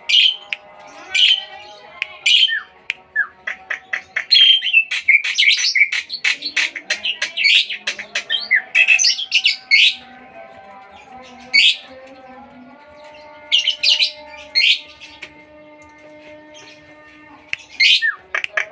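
Songbirds chirping and calling: loud, sharp chirps in quick clusters, busiest from about four to ten seconds in, with further bursts around twelve, fourteen and eighteen seconds.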